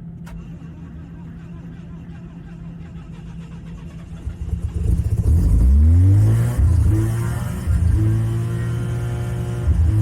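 Cold Mazda rotary engine in a REPU pickup catching about halfway through, revving up quickly and then running on at a high, fast idle. It is a cold start in freezing weather, with the choke on.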